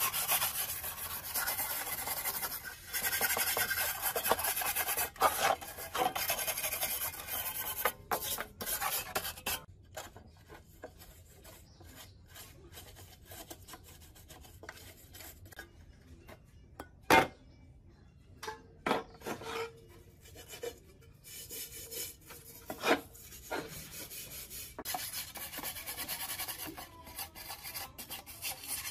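A hand scraper's blade scraping old paint and rust off sheet-steel pump parts in rasping strokes. The scraping stops for a stretch in the middle, where a single sharp knock is loudest, and resumes near the end.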